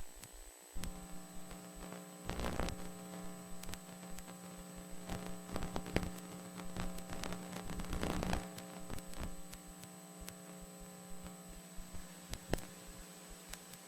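Steady electrical hum from VHS tape playback, setting in just under a second in, with scattered clicks and crackles of static over it; no program sound yet.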